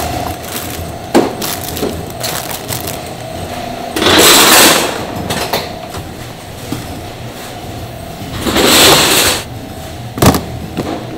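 Black plastic bread crates of bagged buns being handled and stacked: sharp plastic knocks about a second in and near the end, and two loud scraping noises of under a second each, around four and nine seconds in. A steady hum from the packing-line machinery runs underneath.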